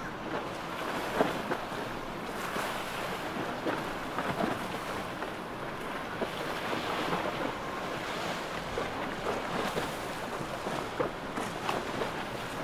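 Rushing, splashing seawater and surf, with wind buffeting the microphone and irregular crackling splashes.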